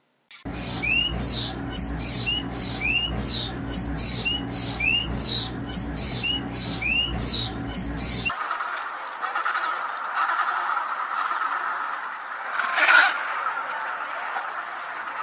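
A bird giving a fast string of repeated short squawks over a low rumble, which cuts off abruptly about eight seconds in. A steady hiss follows, with one brief louder sound near the end.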